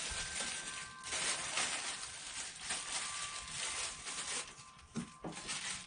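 Packaging being handled and rustled while a boxed benchtop planer is unpacked: an uneven scraping and rustling noise, with a short knock about five seconds in.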